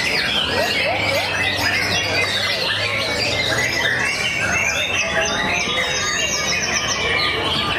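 Many caged songbirds singing at once, white-rumped shamas (murai batu) in competition song: a dense, unbroken tangle of overlapping whistles, trills and chirps.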